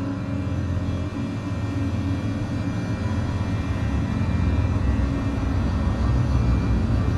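Dark, droning horror film score: a low rumble under sustained held tones, swelling slightly in loudness halfway through.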